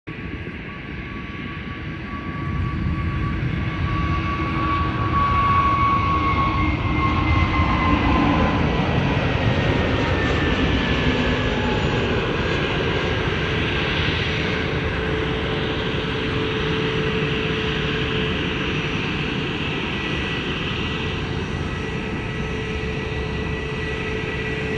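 Airplane engines running loud. The engine noise swells about two and a half seconds in, and a whine falls in pitch in the middle, then settles into a steady hum.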